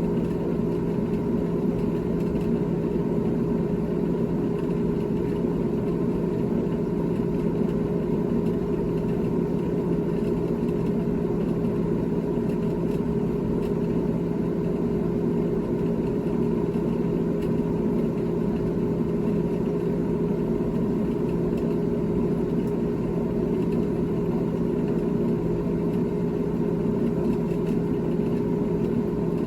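GE GTH18XCTZRBB top-freezer refrigerator running, its compressor and fans giving a steady hum with two clear low pitches and no change in level.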